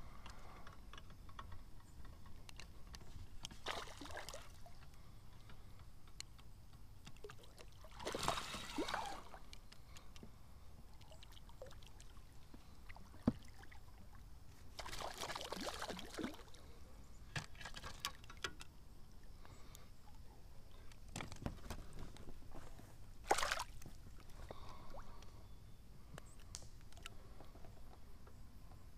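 Hooked largemouth bass splashing at the water's surface as it is reeled in to the boat: several short splashes a few seconds apart.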